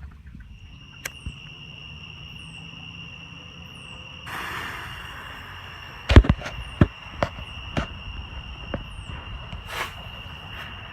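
Small novelty tank firework going off: a hiss about four seconds in, then a loud bang about six seconds in, followed by a handful of smaller sharp pops over the next few seconds and a brief hiss near the end.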